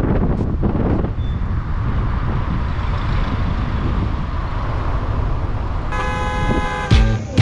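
Steady rushing noise with a deep rumble. About six seconds in, a sustained musical chord comes in, and a song's beat starts near the end.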